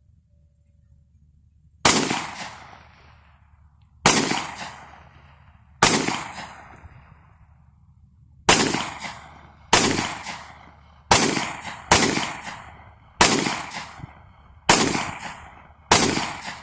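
Glock 19 9mm pistol fired ten times in slow, uneven succession, each shot trailing off in a short echo. The first three shots come about two seconds apart and the rest come quicker, roughly one to one and a half seconds apart.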